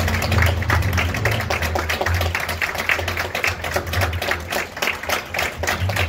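Audience applauding: many overlapping hand claps.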